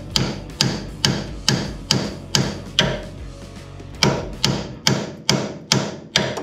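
Hammer blows on steel, about two a second with a metallic ring: seven strikes, a short pause, then six more. The hammer is driving the lower ball joint out of the steering spindle's taper on a 1964 Ford Falcon's front suspension.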